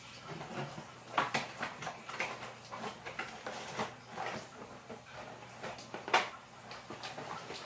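Cardboard box and packaging being handled: irregular rustling, scraping and light knocks as hands rummage in a shipping box and lift its contents, with one louder handling noise about six seconds in.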